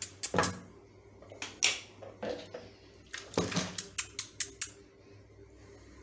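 Water splashing and squelching in a plastic basin as hands scrub a wet English Angora rabbit's soapy fur, with a quick run of sharp splashes about three and a half seconds in.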